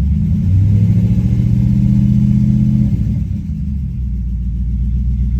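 BMW E39 V8 engine running with no exhaust past the headers and catalytic converters, revved once: the pitch climbs about half a second in, holds, and drops back to idle after about three seconds. The engine has been throwing random misfire codes across different cylinders.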